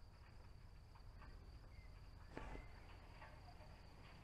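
Near silence with the faint, steady high-pitched chirring of crickets in the fields, and one soft knock a little over two seconds in.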